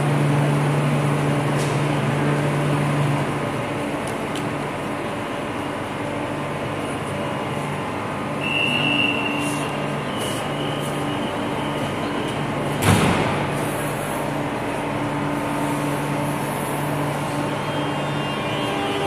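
Metro train standing at an underground platform, its equipment humming steadily. A high tone sounds twice, and then the train's sliding doors close with one sharp bang about 13 seconds in.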